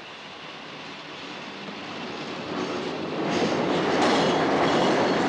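Train running past on an elevated railway line, growing steadily louder over the first three seconds and then holding at its loudest.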